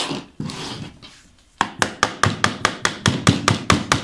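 Rapid, light, even tapping on a screwdriver held against a holding pin, about six taps a second, driving the pin out of a BMW door handle. The tapping starts about one and a half seconds in, after some brief handling noise.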